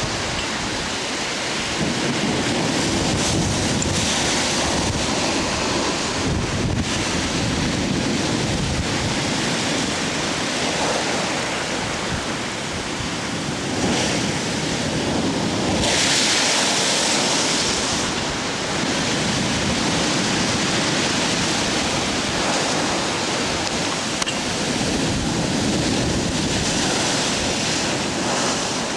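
Hurricane surf pounding against a sea wall, with a continuous churning roar and wind buffeting the microphone. About halfway through, a louder, hissing surge lasts a couple of seconds.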